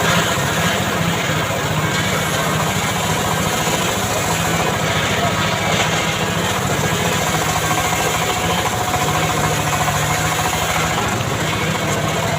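Engine of a homemade motor-driven log saw running steadily at a constant speed.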